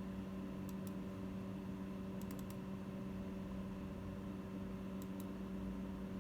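A steady low electrical hum with a few faint, light clicks in small groups: two, then four, then two.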